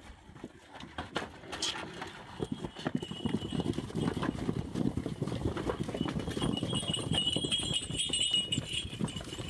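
A herd of goats trotting and jostling together, many hooves pattering and scuffling on packed dirt, building up about two and a half seconds in and staying busy.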